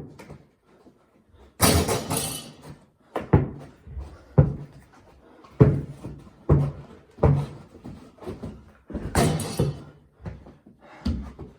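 Basketball bouncing on a hard indoor floor in a dribbling rhythm, a thud roughly every second. There are two louder crashing hits, about two seconds in and about nine seconds in.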